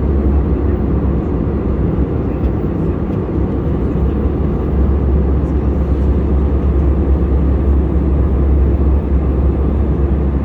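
Steady in-flight cabin noise of an Airbus A320-214: an even, unbroken low rumble from its CFM56 engines and the airflow around the fuselage, heard inside the passenger cabin.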